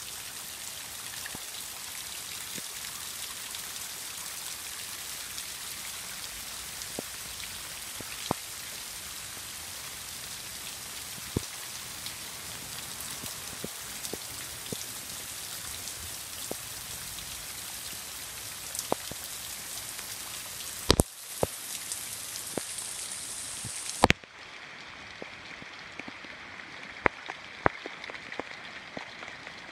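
Steady rain falling on floodwater and soaked ground: a dense hiss dotted with sharp drop ticks. About 24 seconds in the hiss falls away abruptly, leaving a quieter hiss with a few louder ticks.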